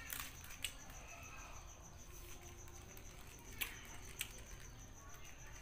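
Crisp napa cabbage leaves being torn and handled: a few sharp snaps with soft rustling between them, under a faint, steady high-pitched chirring.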